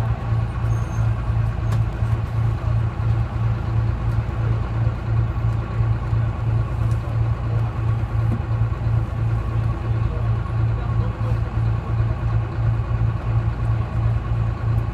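Detroit Diesel 6V71 two-stroke diesel of a GMC New Look transit bus running steadily, a low drone that pulses evenly about three times a second.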